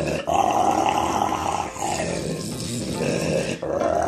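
Rottweiler growling in three long, rough growls with short breaks between them, baring its teeth while its chin is scratched: a grumbling growl from a dog that wants the scratching but still shows its teeth.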